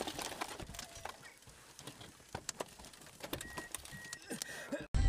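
Irregular clicks and knocks over a hissing rush as a car ploughs off the road through deep snow among trees, snow and branches striking the windshield and body. Near the end it cuts abruptly to loud music.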